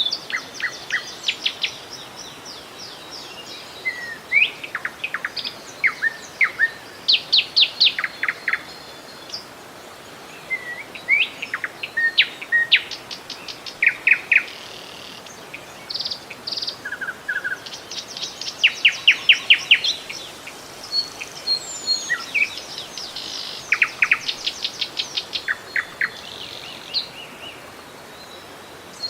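Songbirds calling and singing throughout, with many sharp chirps and rapid trilled runs of notes, over a steady rush of flowing river water.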